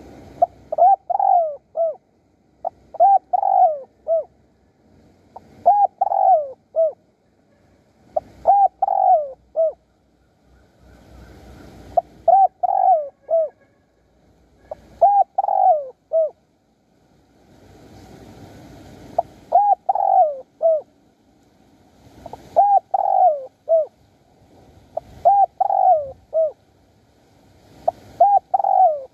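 Spotted dove cooing loudly: a short phrase of three or four coo notes repeated about ten times, every two to three seconds, with a longer pause around the middle.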